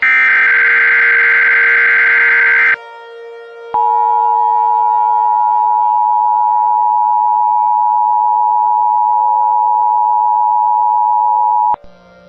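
An Emergency Alert System SAME header data burst, a harsh digital screech, plays for the first three seconds or so. After about a second's pause, the EAS two-tone attention signal sounds as one steady, unwavering tone for about eight seconds and cuts off abruptly.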